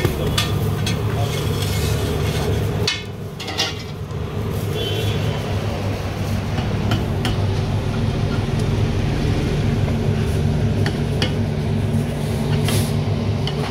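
Metal spatula clinking and tapping on a flat iron pav bhaji griddle, quick and frequent for the first few seconds and then scattered, over a steady low hum.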